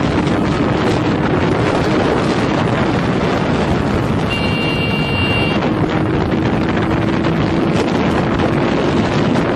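Heavy wind noise on a motorcycle rider's action-camera microphone at highway speed, loud and steady. About four seconds in, a brief high-pitched tone with several pitches sounds for a little over a second.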